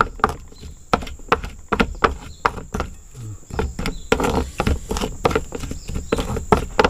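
Pestle knocking and grinding in a mortar, pounding garlic, shallots and soaked tamarind into a spice paste: irregular knocks about two or three a second.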